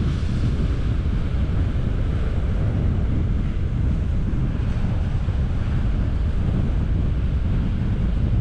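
Wind buffeting the microphone in a steady low rumble, over the wash of sea surf against the rocks.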